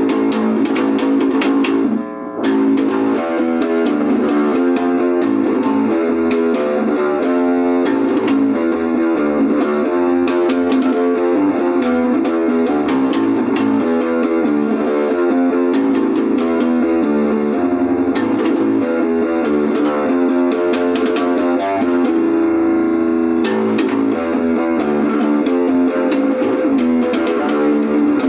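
Instrumental guitar music, a run of quickly plucked notes, with a brief drop in level about two seconds in.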